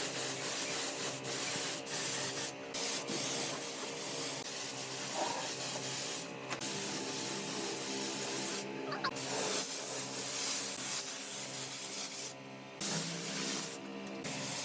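Wood being sanded: a steady abrasive hiss, broken by a few short pauses where the sanding stops.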